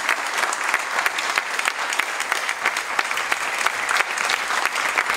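Sustained applause from many people clapping at once, the performers on stage among them.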